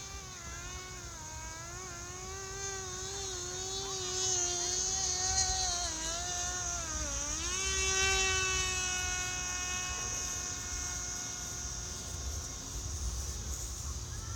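Parrot Disco fixed-wing drone's electric pusher motor and propeller whining in flight, its pitch wavering, dipping about seven seconds in, then rising and holding steady.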